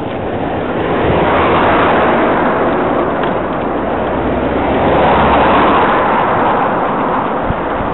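Two cars overtaking a moving bicycle, each a swell of engine and tyre noise that builds and fades, the first peaking about two seconds in and the second about five seconds in, over a low steady rumble.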